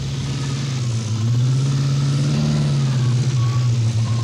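Car engine running as the car drives along, its pitch climbing a little and then dropping back about two-thirds of the way through.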